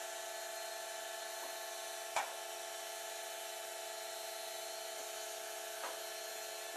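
Steady machine hum with several held tones from a girder transport-and-erection machine as it backs slowly along the bridge deck, with a small click about two seconds in and another near six seconds.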